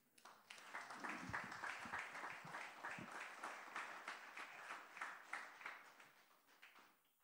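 Congregation applauding: a dense patter of many hands clapping that builds within the first second and dies away near the end.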